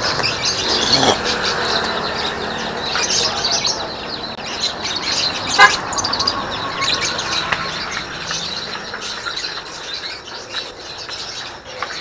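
Many caged songbirds chirping and twittering, with one louder, brief sound about halfway through.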